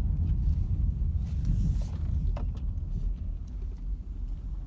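Low, steady rumble of a vehicle with a few faint clicks.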